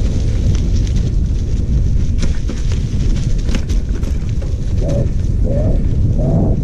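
Wind buffeting the microphone in a steady low rumble, with crackling crunches of dry leaves and twigs on a dirt trail as someone moves along it. A few short wavering tones come in near the end.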